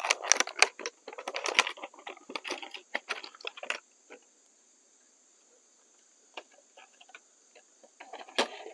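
Rustling and clicking of a 3157A LED bulb and its packaging being handled, busy for the first few seconds, then a few small ticks and a brief rustle near the end. Crickets chirp steadily in the background.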